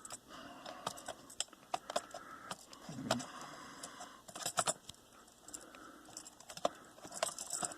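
Small clicks, taps and light scrapes as a laptop's metal CPU heatsink is handled and fitted back down over the processor, corner first, with little clusters of clicks about halfway through and near the end.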